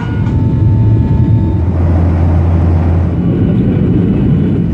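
Loud, steady low rumble of a jet airliner's engines.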